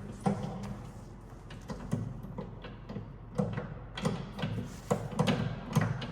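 A string of irregular knocks and clunks, some close together, over a low steady hum.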